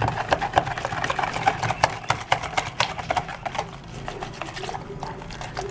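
Gram flour being worked by hand into buttermilk in a plastic bowl to break up its lumps: a quick, irregular run of wet clicks and taps that thins out after about three and a half seconds.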